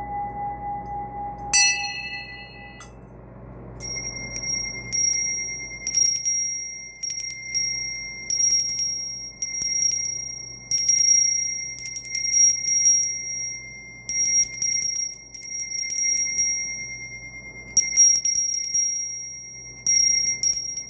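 A singing bowl's wavering hum dies away in the first few seconds, with one bright strike of a small bell about a second and a half in. Then a small hand bell is rung over and over, in clusters of clapper strikes about once a second, each ringing on with a high, clear tone.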